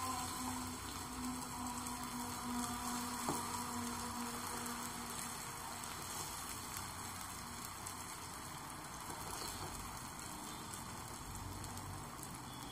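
Rava uttapam batter of semolina, curd and chopped vegetables frying in hot oil and mustard seeds in a pan, a soft steady sizzle as it is poured in and spread with a steel spoon. One light tick about three seconds in.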